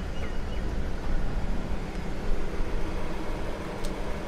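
Steady outdoor background hiss with a low rumble, and a faint click near the end.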